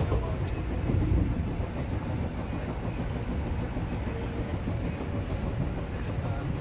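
Tokyo Metro 6000 series subway train running, heard from inside the passenger car: a steady low rumble of wheels and running gear.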